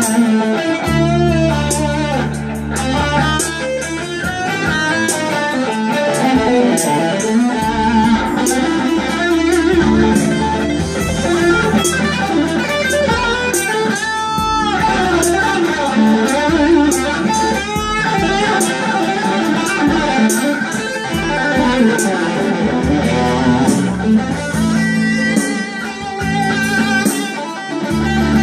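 Electric guitar, a Stratocaster-style with a maple neck played through a small combo amp, improvising a lead line with bent, wavering notes, the clearest about halfway through. Underneath, an arranger keyboard holds sustained bass notes and chords.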